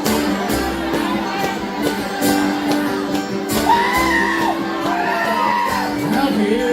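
Live band playing an instrumental passage with guitar strumming over held notes. Whoops and shouts glide above the music in the second half.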